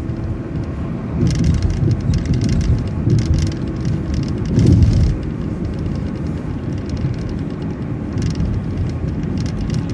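City transit bus driving, heard from inside: steady engine and road noise with bouts of rattling, and a heavier low thump about halfway through.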